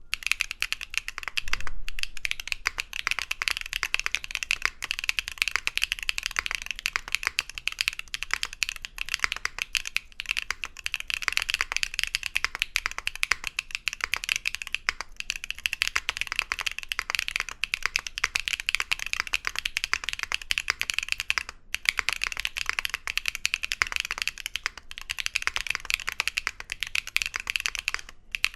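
Steady, fast typing on a mechanical keyboard fitted with Wuque Studio BigLucky tactile switches (polycarbonate housings, factory lubed) on an aluminum plate: a dense run of crisp keystroke clicks and bottom-outs, broken by a few short pauses.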